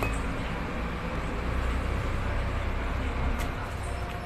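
Steady low mechanical rumble with a hiss over it, like a running engine or vehicle traffic heard in the background; no distinct knocks or clicks stand out.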